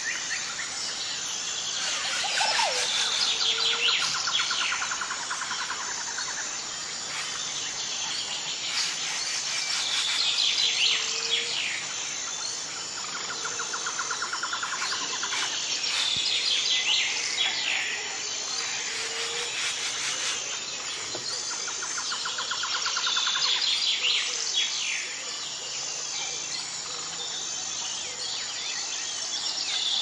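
Songbirds chirping and trilling, in a pattern of chirps and a fast trill that repeats about every six to seven seconds.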